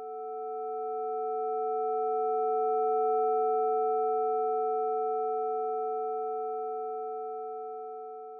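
Sonic Pi chord of pure sine tones sonifying the distribution of the red wines' quality ratings: about five steady tones sound together, the middle two loudest. The chord swells for about three seconds, then fades slowly away.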